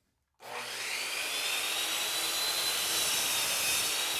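Skil compound miter saw switching on about half a second in and running with a steady high whine as its blade cuts down through a wooden board at a 45-degree bevel.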